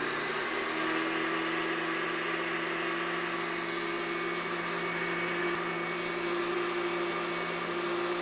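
Cuisinart countertop blender motor running at one steady speed, blending a thin liquid mix of cream, sweetened condensed milk and whiskey; an even whirring hum that holds one pitch throughout.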